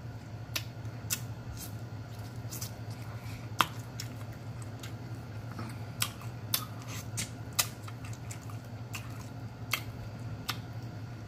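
Close-miked eating sounds: scattered wet smacks and clicks of lips and fingers as a man chews turkey tail and sucks it off his fingers, over a steady low hum.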